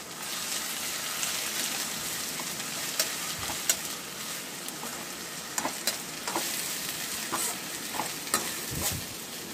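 Onions and a ginger-garlic and garam masala paste frying in hot oil in a steel kadai: a steady sizzle, with a perforated steel spatula stirring and scraping against the pan in scattered clicks.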